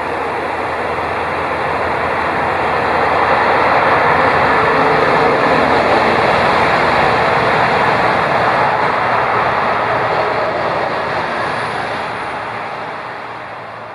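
A passing road vehicle: tyre and engine noise swelling over the first few seconds, loudest mid-way, then fading away.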